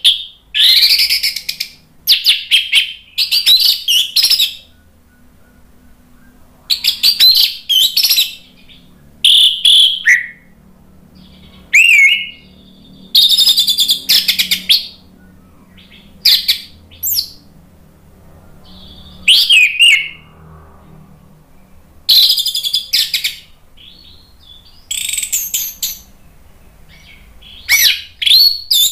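Orange-headed thrush (anis merah) singing its loud, full song. It sings short varied phrases of one to two seconds every couple of seconds, mixing clear whistles, rising slurs and rapid chattering notes.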